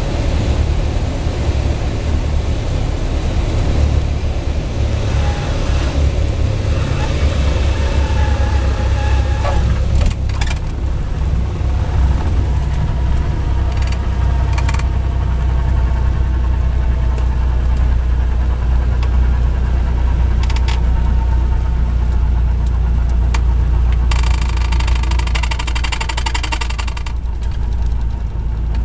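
Cessna 172's four-cylinder piston engine and propeller heard from inside the cabin, droning steadily and growing stronger from about twelve seconds in as the plane rolls down the runway. A buzzing tone sounds over it for about three seconds near the end.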